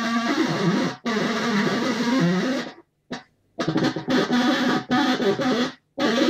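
Loudspeaker driver buzzing raspily as a wire from a battery is scraped against its voice-coil terminal. The crude make-and-break contact sets the pitch, so it wavers, and the sound cuts off abruptly whenever the contact breaks.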